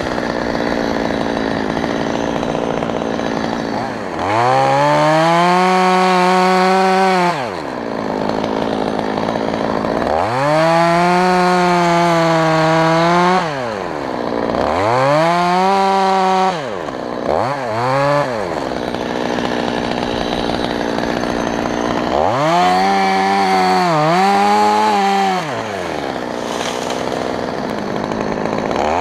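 Stihl MS 200T top-handle chainsaw idling, then revving to full throttle in repeated bursts of two to three seconds as it cuts into an oak trunk, with a couple of quick throttle blips in between.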